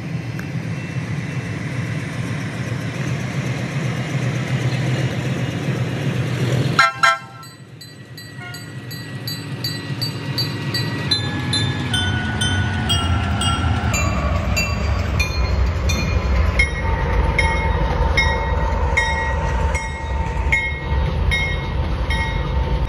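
Norfolk Southern diesel freight train passing close by: locomotive rumble and horn, with a sudden loud knock about seven seconds in. After that the cars roll past with a heavy rumble and a steady, rhythmic clicking of wheels over the rail joints.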